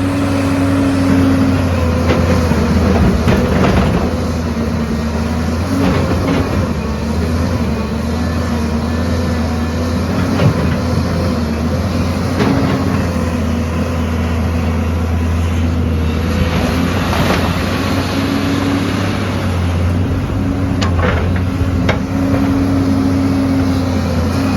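Heavy diesel earthmoving machine running steadily under load, its engine tone rising and falling slightly, with scattered knocks and clanks every few seconds.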